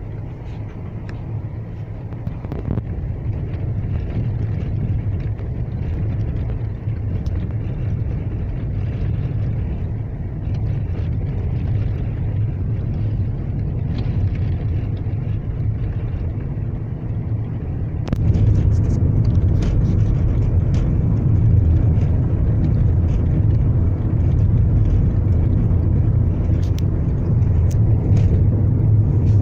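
Car driving on a broken, potholed asphalt road, heard from inside the cabin: a steady low rumble of engine and tyres with scattered knocks and rattles over the bumps. It gets louder about two-thirds of the way through.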